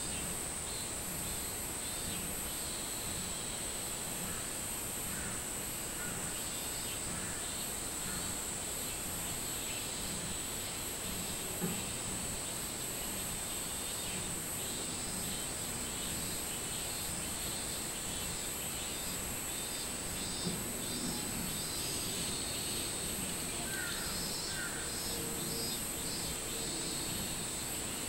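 Robust cicadas (minmin-zemi) singing in a steady, high-pitched chorus, their pulsing calls growing stronger in the second half. A couple of short bird chirps come near the end.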